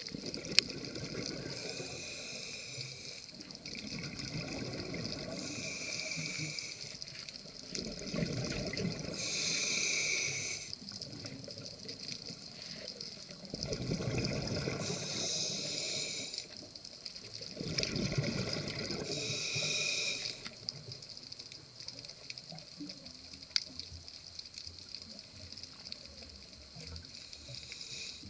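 Scuba diver breathing through a regulator underwater: a hiss on each inhale alternating with a low bubbling rush of exhaled bubbles, repeating every few seconds.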